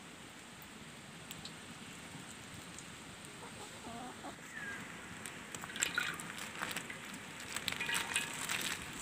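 Chickens clucking, with louder bursts of clucks about six and eight seconds in.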